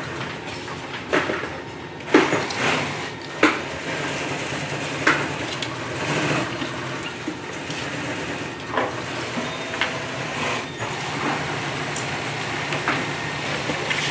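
Scattered clicks and knocks of hands working at an industrial sewing machine, threading and adjusting it and laying fabric on the table, over a steady low hum; the machine does not stitch.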